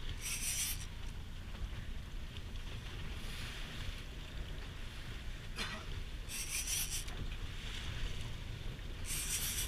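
Big-game fishing reel's drag buzzing in three short high-pitched bursts, near the start, about six and a half seconds in and at the end, as a hooked fish pulls line. Under it runs a steady low rumble of wind and boat noise.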